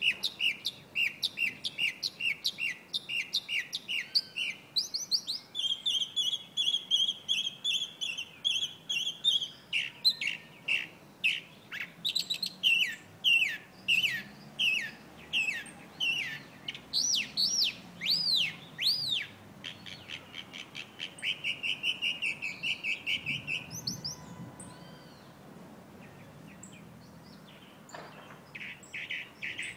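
Chalk-browed mockingbird singing a long, varied song: runs of quick repeated notes, a buzzy trill, then loud arching notes and another fast trill. It breaks off for a few seconds near the end, then starts again.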